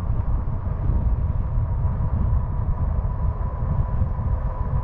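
Riding a RadRover Step-Thru 1 electric fat-tire bike: heavy wind noise on the microphone and tyre noise, with a thin steady whine from the bike's geared hub motor.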